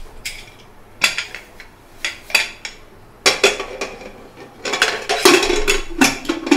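Metal clanks of a pressure cooker's lid being put on and closed: a few separate knocks, then a busier run of clatter with some ringing near the end.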